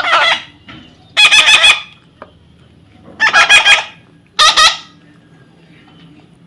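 A parrot calling loudly in four short bouts of rapid, repeated shrill notes, with pauses between them.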